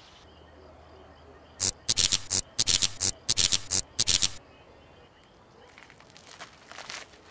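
Night insect chirping: a burst of about nine short, raspy, high-pitched pulses in quick groups, then fainter chirps later on.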